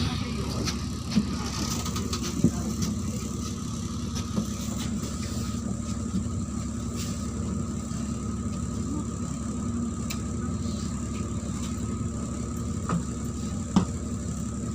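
Neman city bus under way, heard from inside the cabin: steady engine and road rumble with a constant hum, and a few sharp knocks and rattles from the body, one about a second in, another at two and a half seconds and one near the end.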